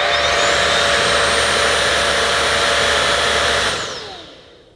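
Miele Duoflex HX1 cordless vacuum running with its mini motorized tool fitted and the brushroll spinning in the air: a steady motor noise with a high whine that climbs as it comes up to speed. About four seconds in it is switched off and the whine falls away as it spins down.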